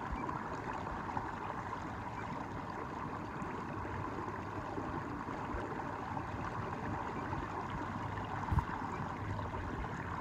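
Steady wash of water along a kayak's hull as it moves under a bow-mounted electric trolling motor, with a faint steady hum underneath. A single knock about eight and a half seconds in.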